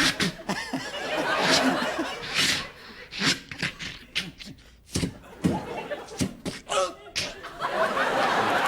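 Studio audience laughing, with short sharp and pitched vocal sound effects made with the mouth coming in between the laughs, around the middle.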